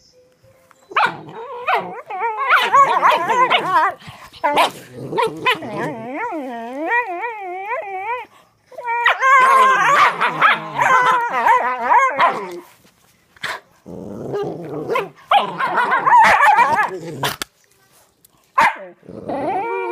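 Dogs growling at each other in play, in several drawn-out bouts of wavering, pitched growls and grumbles with short pauses between them.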